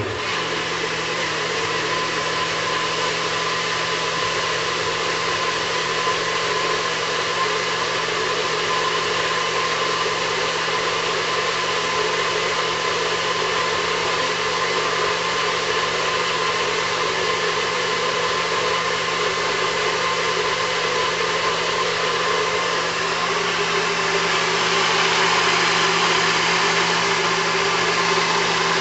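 Countertop blender switched on and running steadily, blending a thick pancake batter of okra, flour and water. It grows a little louder near the end.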